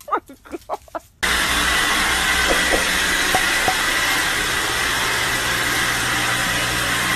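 A robot vacuum cleaner runs with a loud, steady whirring hiss that cuts in suddenly about a second in. Before it come a few brief, pitched yelps from a dog.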